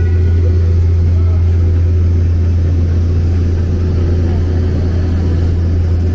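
Truck-mounted generator set running steadily: a loud, even low drone.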